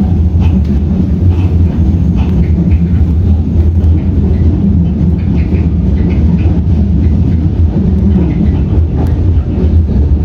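Comeng electric suburban train running at speed, heard from inside the carriage: a steady low rumble of wheels on rails and running gear, with occasional faint clicks.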